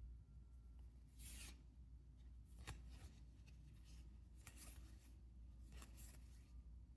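Faint swishes of trading cards sliding against each other as a freshly opened booster pack is flipped through, four or so brief rubs over a low hum.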